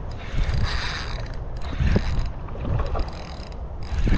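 Penn Battle 3000 spinning reel being cranked, its gears whirring, as it reels in a hooked peacock bass under load. Wind rumbles low on the microphone.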